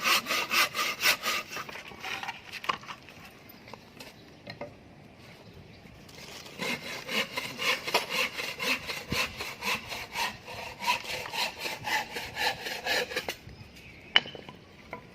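Handsaw cutting through a wooden formwork board in steady back-and-forth strokes, about three a second, in two bouts with a pause of a few seconds between them.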